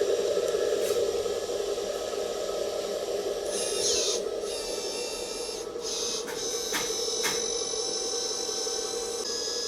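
Hydraulic pump and electric motor of a model hook-lift truck running steadily with a droning hum, joined about three and a half seconds in by high whining tones and a few light clicks.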